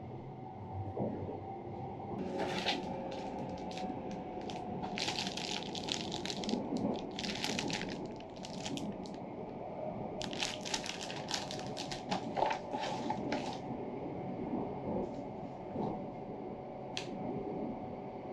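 Paper bag and plastic wrapping crinkling and rustling in repeated bursts as packaging is handled, over the steady low running rumble of the train heard from inside the carriage.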